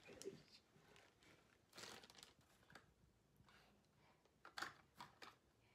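Faint crinkling and rustling of plastic toy-car blister packs being handled. There are a few short scrapes, the longest about two seconds in, and quick ones near the end.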